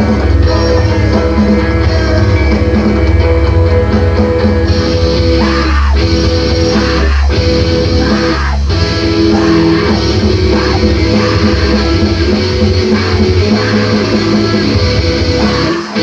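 Screamo band recording: loud distorted electric guitars with bass and drums, broken by a few short stops a little before halfway.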